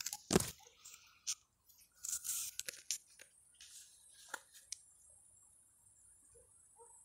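Pepper plant leaves rustling and crackling as they brush against the phone moving through the foliage, with a sharp knock about half a second in and a longer rustle around two seconds in. Crickets chirp steadily behind.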